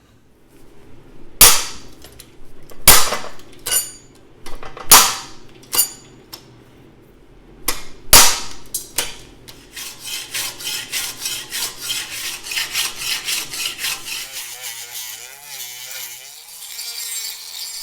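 Sharp metallic snaps of a hole punch going through thin 18-gauge steel strips, seven in the first nine seconds. Then a fast, even rasping as the punched strips are smoothed off.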